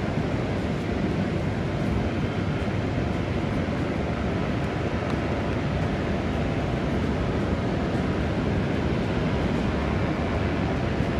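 Steady wind buffeting the microphone over the rush of ocean surf, a constant low rumble with no breaks.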